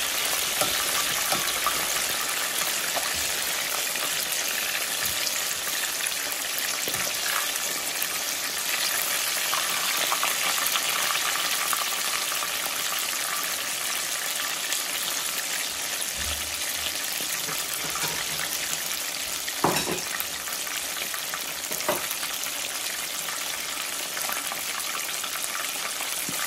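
Chicken wings deep-frying in hot oil, a steady dense crackling sizzle: the first fry of a double fry meant to make them crunchy. Two brief knocks sound about two-thirds of the way through.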